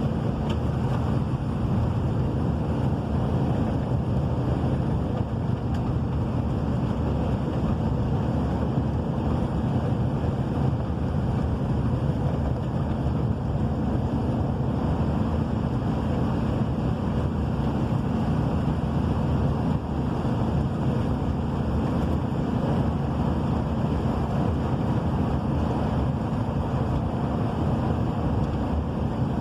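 Steady rushing of heavy rain and wind, with wind buffeting the microphone and a low steady hum underneath.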